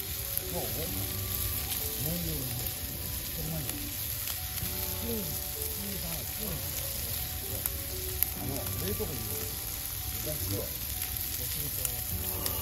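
Meat sizzling steadily in a frying pan over a wood fire.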